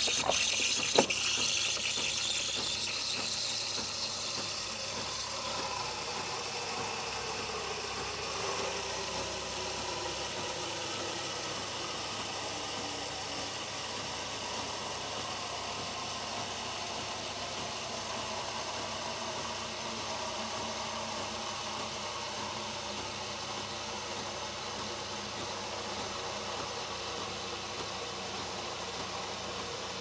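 Siemens EQ3 s300 coffee machine's milk-frothing nozzle hissing steadily as it steams a glass of milk into foam for a latte macchiato. A short knock sounds about a second in, and a faint tone slowly falls in pitch over the first ten seconds or so.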